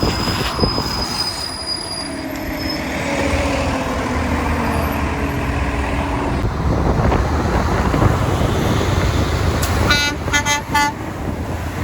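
Garbage truck engines running, with a pitched drone that slides slowly lower; about ten seconds in, a truck horn gives a quick run of short toots.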